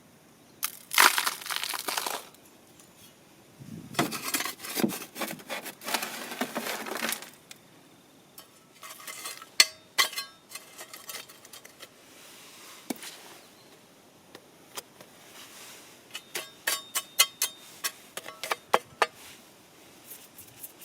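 Handling noises: crinkling and rustling in two stretches, then a run of light clinks with a short ring, like metal or glass tableware being knocked together.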